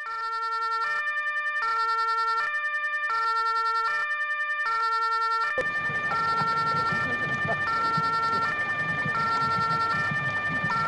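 Two-tone emergency-vehicle siren of the German 'tatü-tata' kind, alternating evenly between two pitches about every three-quarters of a second. From about five and a half seconds in, outdoor street noise joins underneath it.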